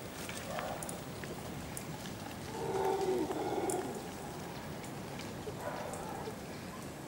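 Mantled howler monkey calling: a low, drawn-out moaning call about two and a half seconds in, lasting just over a second, with a shorter, fainter one near the end.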